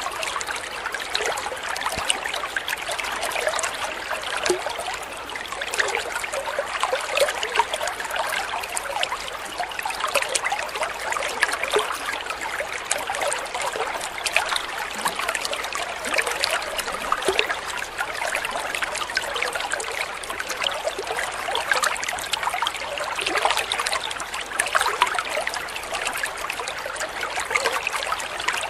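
Small stream of water pouring from a spout into a koi pond, splashing onto the surface in a steady trickle. It is a bright, continuous patter of many small splashes with little low rumble.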